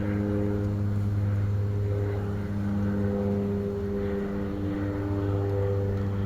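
An engine running steadily, a low droning hum that holds one pitch.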